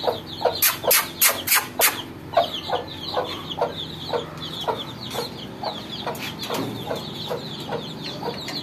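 A brood of young chicks peeping rapidly and continuously, with the mother hen clucking low and repeatedly among them. There are a handful of sharp clicks in the first two seconds.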